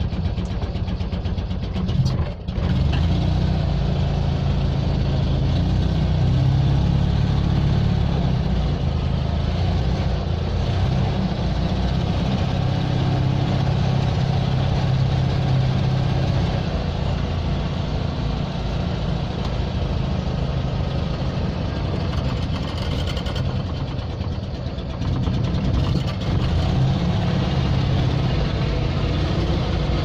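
Steyr-Puch air-cooled flat-twin engine of an Invacar Model 70 invalid carriage running steadily, heard from inside the small cabin as the three-wheeler drives along. There is a brief break about two seconds in.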